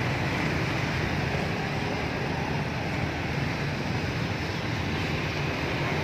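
Steady roadside traffic noise, an even hum without distinct events.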